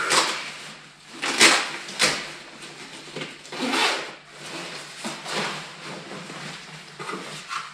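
Motorcycle jacket being handled and turned over, its fabric rustling and rubbing in a series of irregular swishes of about a second each.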